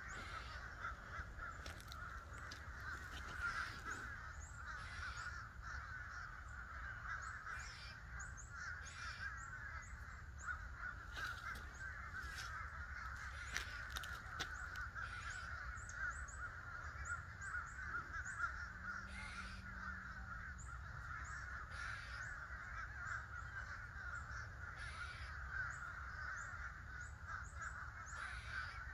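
Outdoor bird chorus: birds chattering steadily, with a louder call every few seconds and short high chirps, over a steady low rumble.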